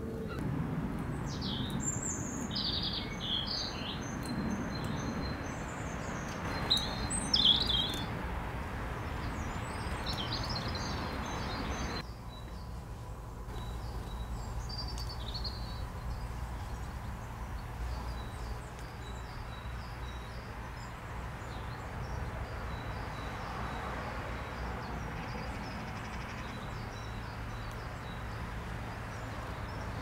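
Garden songbirds singing and calling: bright high chirps and short phrases, loudest in the first eight seconds, then a thin, evenly repeated high note among fainter chirps. A low steady rumble runs underneath.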